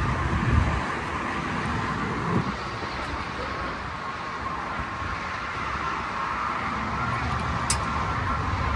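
Steady road traffic noise, a constant rumble and hum with a few small knocks.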